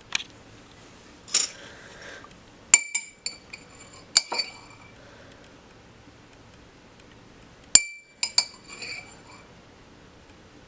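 Dishes and glassware clinking: sharp taps that ring briefly, in a cluster from about three to four and a half seconds in and another around eight seconds in.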